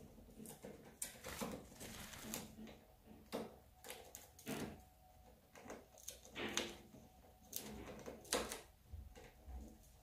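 Quaker parrots preening and shifting on a wooden perch: faint, irregular small clicks, taps and rustles.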